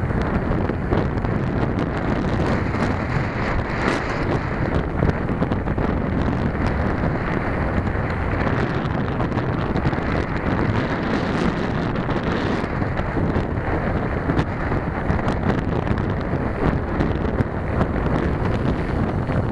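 Steady wind noise buffeting the microphone of a bike-mounted camera while riding, mixed with bicycle tyres rolling on a gravel towpath and small rattles and ticks from the bike.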